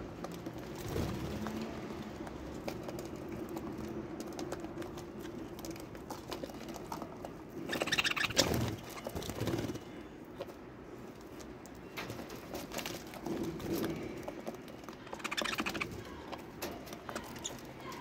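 Budgerigars feeding at a box of seed: a steady run of small clicks and scratches from beaks picking and shelling seed, with louder, busier bursts about eight and fifteen seconds in.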